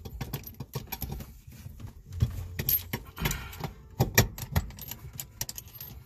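Irregular metal clicks, clinks and small knocks as hands fit an RSX race shift cable onto an aftermarket shifter box, with a few louder knocks about two, three and four seconds in.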